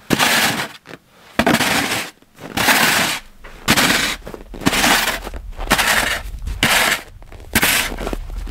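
Plastic snow shovel scraping over packed snow, pushing wood chips and sawdust into a pile in short strokes about once a second, roughly eight in all.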